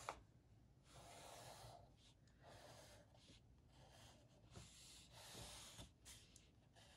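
Faint scratching of a graphite pencil drawing straight lines on paper, a few separate strokes of about a second or less each.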